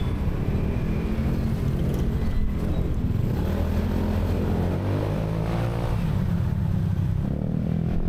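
Motorcycle engine running while being ridden, heard through a handlebar-mounted DJI Osmo Action 4's built-in microphone; a steady low rumble whose engine pitch rises and falls near the middle.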